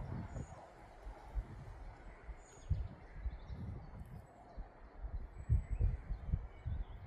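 Wind buffeting the microphone in uneven low gusts, with a few faint bird chirps.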